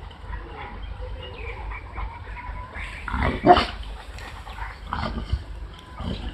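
Boerboel dogs making short throaty vocal noises, with one louder, pitched throaty sound about three and a half seconds in.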